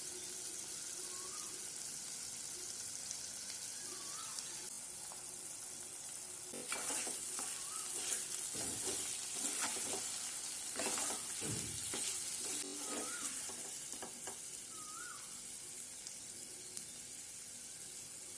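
Chicken sizzling as it fries in a pan, with a steady hiss. For several seconds in the middle a spoon scrapes and stirs the pan.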